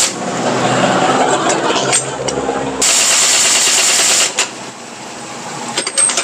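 Pneumatic impact wrench rattling on a truck's wheel lug nuts. It runs in bursts, with a loud burst with a strong hiss about three seconds in that stops after about a second, then sharp clicks near the end.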